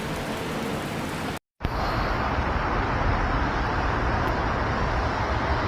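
Steady hiss of road traffic noise, broken by a brief dropout about a second and a half in, after which the noise sounds duller.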